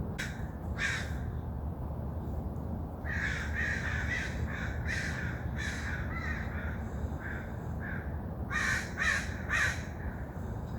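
Crows cawing in a loose series of short, harsh calls. There are two near the start, a run of about ten from about three seconds in, and three quick ones near the end, over a steady low rumble.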